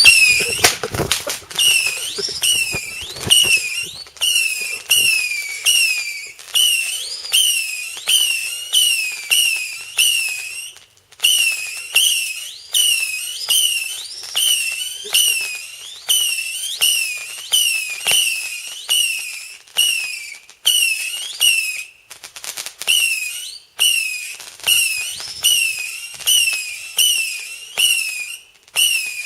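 A damp whistle firework misfiring. Instead of one steady shriek it sputters out a long string of short whistles, about one and a half a second, each starting sharply, dipping and then rising in pitch, with a couple of brief pauses.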